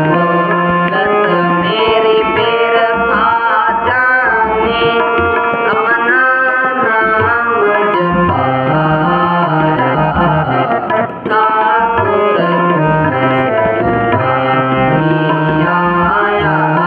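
Shabad kirtan: a harmonium holding steady notes and a tabla keeping the beat under voices singing a Sikh hymn set in raag Sarang. The loudness dips briefly about two thirds of the way through.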